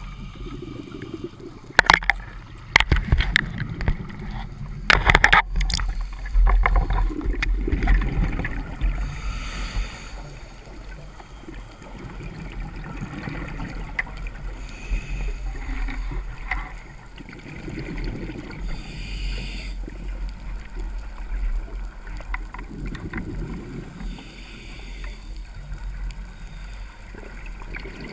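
Underwater sound of a dive: a steady low rumble with gurgling, hissing bubble noise that comes and goes every few seconds, and a cluster of sharp clicks or knocks of gear in the first five seconds.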